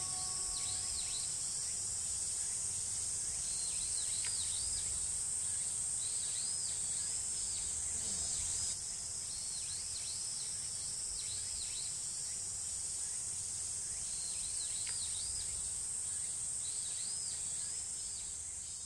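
Summer insect chorus: a steady, high-pitched drone, with runs of short, repeated swooping calls over it.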